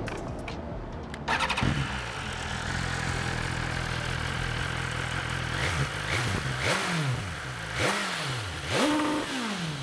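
2021 BMW S1000RR's 999 cc inline-four on its stock exhaust starting about a second and a half in and idling. It then takes a few quick throttle blips, the last held briefly against the limiter, which is set at about 8,500 rpm.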